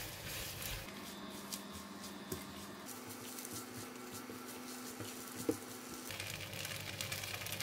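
Noodles and beansprouts sizzling faintly in a non-stick wok as they are stir-fried with a spatula, with a couple of light spatula knocks about two and five and a half seconds in, over a steady low hum.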